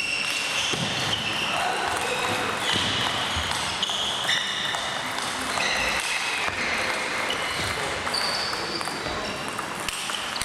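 Table tennis being played on several tables in a sports hall: plastic balls clicking off paddles and tables, sneakers squeaking briefly and often on the court floor, with people talking in the background.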